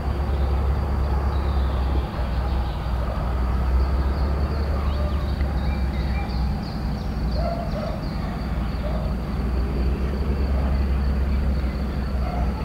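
10D100 two-stroke opposed-piston diesel engines of a 2TE10-series freight locomotive working under load as it hauls a freight train, a steady low-pitched drone.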